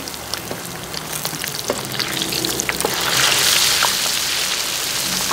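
Battered mussels frying in hot oil in a wok, with a steady sizzle and many sharp spattering pops as a spatula turns the batter. The sizzle grows louder about three seconds in.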